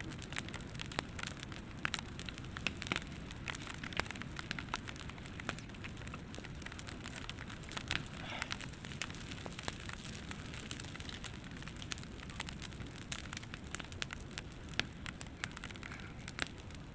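Log campfire burning, crackling with frequent sharp irregular pops over a steady low noise of the flames.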